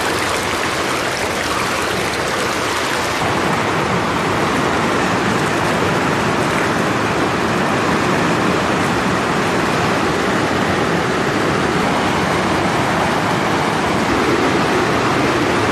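Jhelum River rapids rushing over rocks, a steady whitewater noise that grows a little louder about three seconds in.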